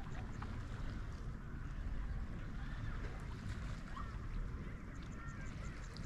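Wind buffeting the microphone in a steady low rumble, with birds chirping and calling in short notes and little glides, and a quick run of high repeated notes near the end.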